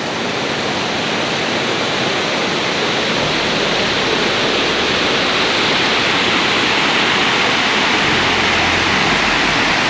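Waterfall rushing: a steady, dense noise of falling water that grows a little louder over the first couple of seconds and then holds.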